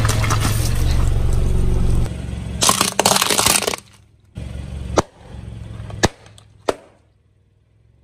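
A car tyre rolling over objects and crushing them. For the first two seconds there is a steady low hum with crushing noise, then a loud crunching burst about three seconds in. After that come three sharp snaps of plastic cracking, at about five, six and just under seven seconds.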